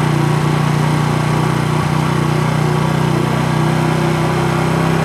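Small vehicle engine running at a steady cruising speed, a constant low hum that does not change in pitch.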